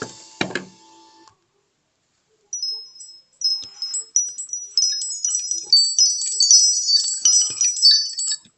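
Nokia 300 ringtones: the end of one tone dies away in the first second, then after a short gap a new ringtone starts, a quick run of high, tinkling chime-like notes.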